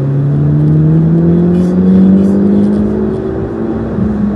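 A vehicle engine pulling under acceleration, its pitch climbing steadily, then dropping near the end as at a gear change.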